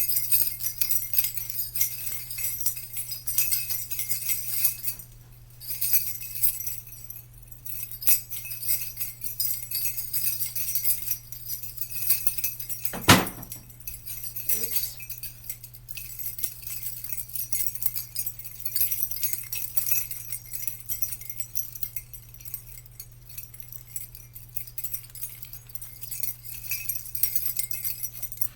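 Small jingle bells being shaken continuously in a bright, shimmering jingle, dipping briefly a few times, with one sharp click about 13 seconds in, over a steady low hum.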